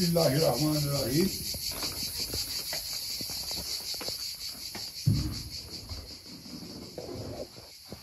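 Insects chirping in a fast, even pulsing rhythm that carries on steadily, with one low thump about five seconds in.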